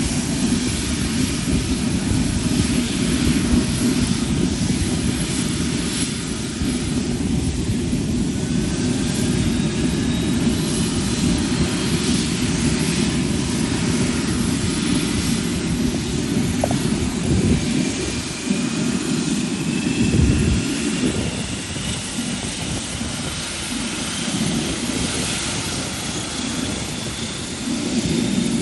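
The four Allison T56 turboprop engines of a P-3K2 Orion run at taxi power: a steady, loud propeller drone with a high turbine whine that glides slowly upward at times.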